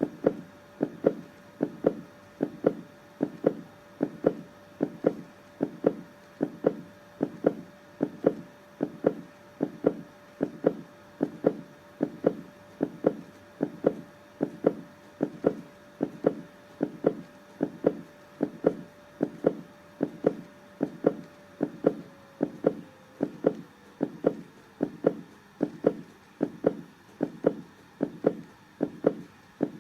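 Heartbeat, a steady double thump (lub-dub) repeating at about one beat a second.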